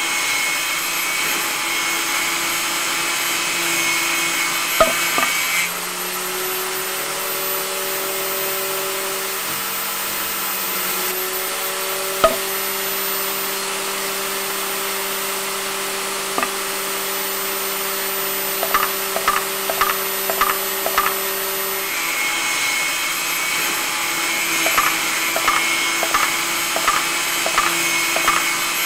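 Small electric motor spinning the cutting disc of a homemade miniature saw, a steady whine, as it cuts through thin sticks of wood. The tone of the whine changes abruptly twice, and runs of rapid ticks come in the second half.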